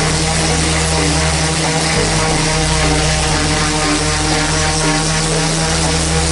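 Cordless random orbital sander running steadily while being pressed onto a wooden plate blank, a constant motor hum over the hiss of the sanding pad.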